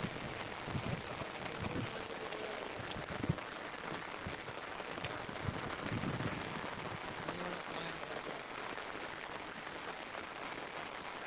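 Steady rain falling, an even hiss with scattered low thumps in the first few seconds.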